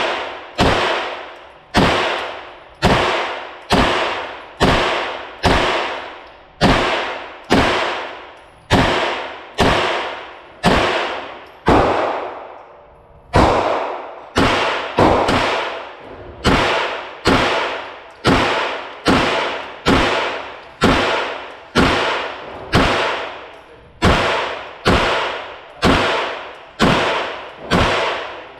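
Custom AR-15 9mm pistol-caliber carbine firing a long string of single semi-automatic shots, about one every half second, with a pause of about a second near the middle. Each shot rings off in the reverberation of an indoor range.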